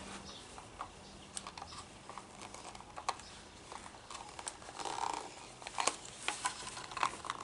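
Scattered light clicks and taps of plastic parts being handled: a string trimmer's bump head pushed in and turned by hand, clicking through its notches.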